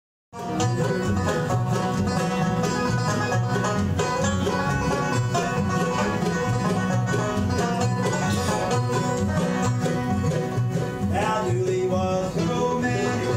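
Bluegrass band playing live on acoustic guitars, banjo and upright bass, a busy instrumental passage that starts suddenly.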